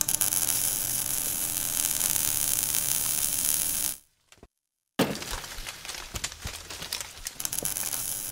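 Logo-intro sound effect of sparks and fire: a steady crackling hiss for about four seconds, cut off by a second of silence, then a sudden hit about five seconds in, followed by crackling that slowly dies down.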